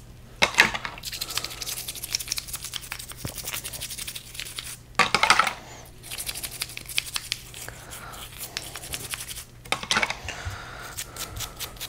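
Toothbrush bristles scrubbing a differential gear in quick back-and-forth strokes, a dry rapid scratching over the metal teeth, with a few louder bursts of scrubbing.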